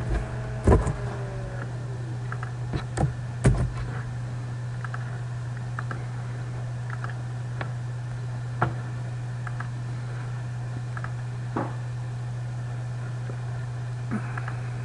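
Scattered clicks of a computer keyboard and mouse over a steady low electrical hum, with a few louder clicks in the first four seconds and occasional single clicks after.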